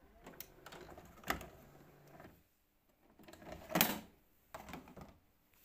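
VHS video cassette recorder's mechanism running after a front-panel button press: whirring with clicks and a sharp clack about a second in. Then the cassette comes out of the deck and is handled, the loudest noise coming near four seconds in, followed by a few light clicks.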